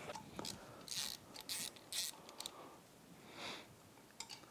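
Faint, short scrapes and clicks of a hand ratchet and socket being handled: three quick ones about a second in, then a softer one later.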